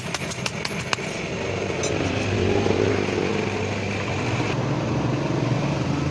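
A motor running steadily with a low hum that builds over the first couple of seconds and then holds, with a few sharp clicks in the first second.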